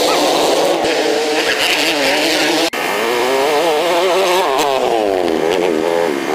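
Racing quad bike (ATV) engines revving, the pitch climbing and falling quickly. The sound breaks off abruptly about two and a half seconds in, then resumes with an engine revving up and down repeatedly.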